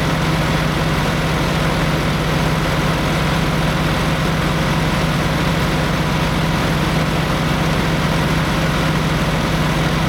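Tractor diesel engine running steadily, with an even low hum, as the tractor drives over a silage pile packing it down.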